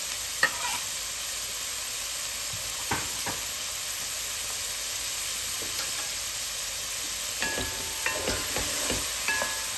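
Diced onion, carrot and celery sizzling in a heavy pot, with a steady hiss. A spoon stirring the vegetables gives a few light knocks and scrapes against the pot, most of them near the end.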